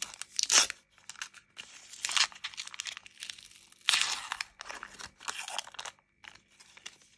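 Foil wrapper of a Panini Adrenalyn XL trading-card booster pack being torn open and crinkled as the cards are pulled out. The sound comes in irregular tearing and rustling bursts, loudest about half a second in and again around four seconds in.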